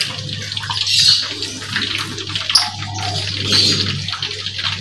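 Battered fritters deep-frying in a wok of hot oil, sizzling and crackling steadily, with a low steady hum underneath.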